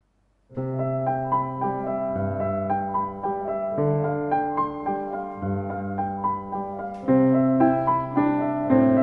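Two digital pianos playing a simple duet at an even, gentle pace, low held bass notes under repeated higher notes. It starts about half a second in and gets louder about seven seconds in.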